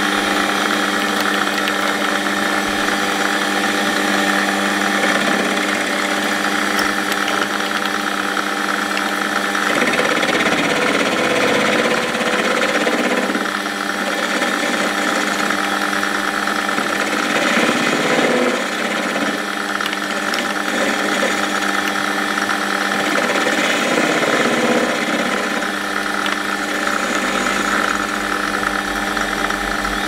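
Metal lathe running with a steady mechanical hum from its motor and gearing, while a carbide-insert tool faces off the end of a bar of home-cast aluminium. A rougher cutting noise comes and goes over the hum from about ten seconds in.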